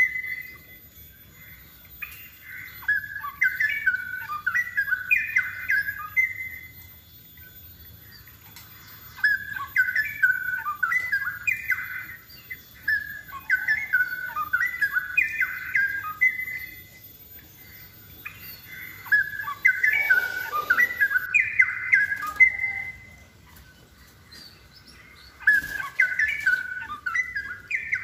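Straw-headed bulbul (cucak rowo) singing: rich, bubbling warbled phrases of several seconds each, separated by short pauses. The bird is in full, vigorous song. A brief burst of noise cuts across the song near the middle and again near the end.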